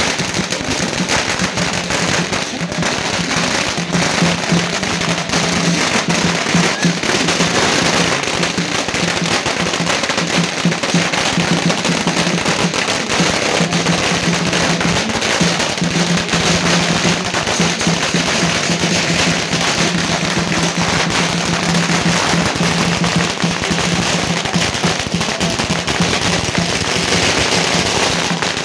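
A long string of firecrackers going off in a continuous, rapid crackle of pops, with a steady low hum underneath.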